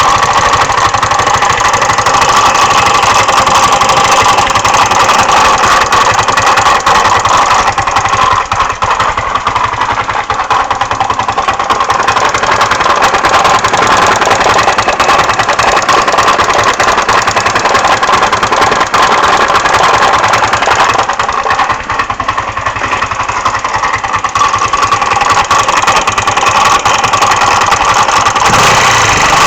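GY6 150cc single-cylinder four-stroke scooter engine running, with a fast clatter or knock from inside the engine. The owner has ruled out the clutch, variator and belt, and the engine shows no loss of power.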